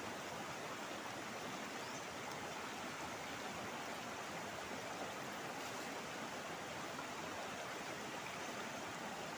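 Fast, shallow rocky stream rushing over stones: a steady, even rush of water.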